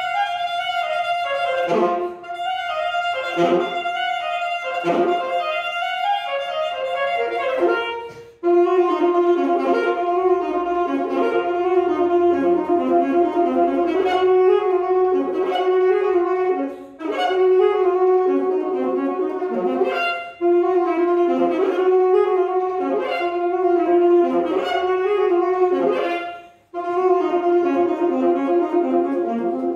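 Solo saxophone playing a melody: shorter notes in the first few seconds, then long held notes with brief pauses between phrases.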